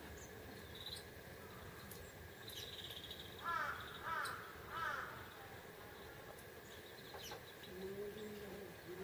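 A crow calling three harsh caws about two-thirds of a second apart midway through, over scattered high chirps and a short buzzy trill from small birds. A short low tone sounds near the end.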